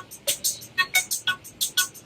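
A ringtone melody from a Sharp Aquos Pad SH-08E tablet: a quick run of short, bright electronic notes, about four a second.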